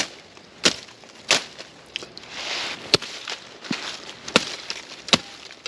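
Footsteps through leaf litter and twigs on a woodland floor: a sharp crunch or snap about every two-thirds of a second, with a spell of leaf rustling near the middle.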